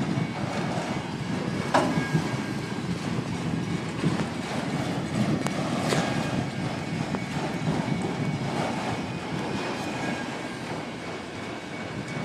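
Freight cars of a passing train rolling by: a steady rumble of steel wheels on rail, with a sharp clack about two seconds in and another about six seconds in.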